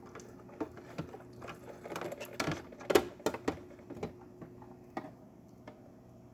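Irregular knocks and clicks from handling a DeLonghi espresso machine and its water tank while tipping it to check for leaks. The knocks bunch up around the middle, with the sharpest about three seconds in, over a faint steady hum.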